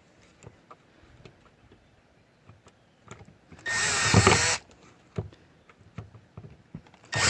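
Cordless drill briefly driving screws back into a car door panel: a run of about a second some four seconds in, and another starting near the end, with faint small clicks of handling in between.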